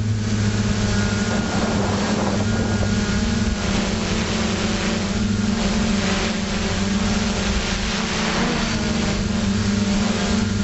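FPV multirotor drone's electric motors and propellers humming steadily in flight, heard from its onboard camera, with wind on the microphone.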